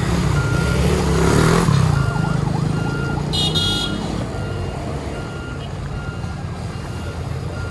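Scania K400IB Touring coach's 13-litre straight-six diesel running as the bus pulls away, with a warning beeper sounding about every 0.8 s. A passing motorcycle's engine rises and falls in the first two seconds, and a brief high tone sounds about three seconds in.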